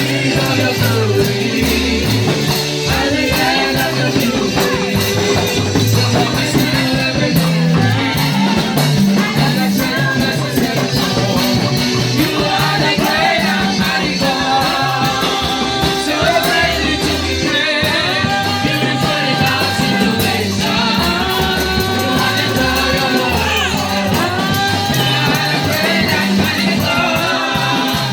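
Live gospel worship music: a band with a steady beat and a moving bass line, with voices singing over it.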